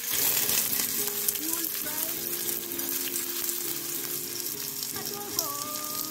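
Chopped onions sliding into hot oil in a frying pan and sizzling. The sizzle jumps up as they land, then settles into a steady frying hiss.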